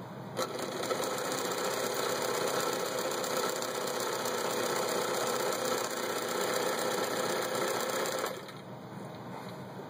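Bernina Record 830 sewing machine running steadily, stitching one of its built-in decorative stitch patterns through fabric. It starts about half a second in and stops suddenly shortly before the end.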